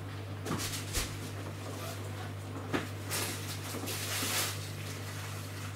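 Samsung WW10N645RBW front-loading washing machine in its wash cycle: a steady low hum, with water and laundry swishing in the turning drum twice in the middle, and a few light knocks.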